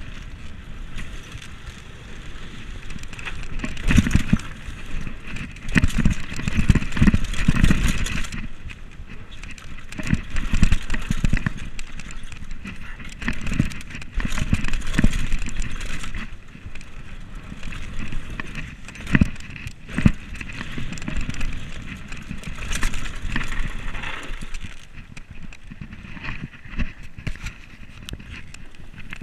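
Commencal Meta SX2 full-suspension mountain bike descending a dirt trail at speed, heard from a camera on the bike: tyres rumbling on the dirt and the bike rattling and knocking over bumps, with wind buffeting the microphone.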